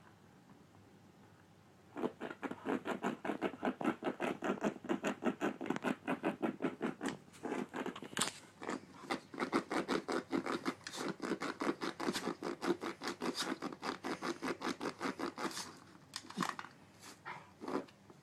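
Rapid, rhythmic scratching at a cat toy, about five strokes a second, starting about two seconds in and pausing briefly twice.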